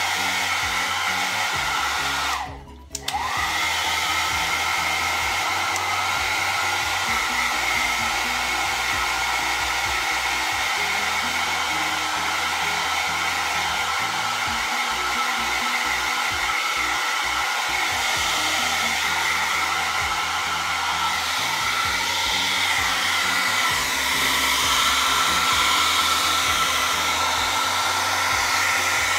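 Small handheld hair dryer blowing steadily, a rush of air with a steady whine over it. It drops out briefly about two and a half seconds in and comes back, and gets a little louder in the last few seconds.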